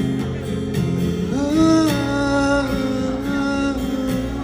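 Song with acoustic guitar accompaniment and a long held melody note a little over a second in.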